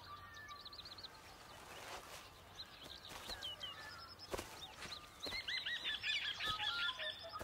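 Wild birds chirping, a string of short repeated arched calls that grows busier and louder in the second half, over faint outdoor ambience, with a few soft knocks.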